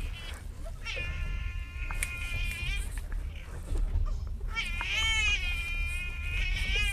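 A man's high, whining falsetto wails, twice, a mix of mock crying and laughter. Underneath is a steady low rumble, typical of a train carriage.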